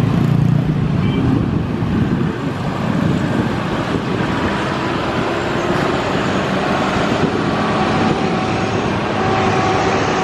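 Steady road traffic: cars and motorcycles passing close by on a busy road.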